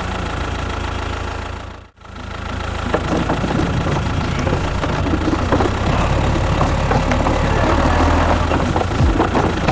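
Engine of a miniature DIY tractor or bulldozer running with a knocking, rattling clatter. The sound cuts out briefly about two seconds in and comes back busier.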